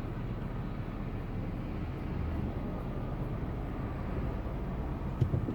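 Steady road and engine noise inside a moving car's cabin, a low rumble, with a brief knock near the end.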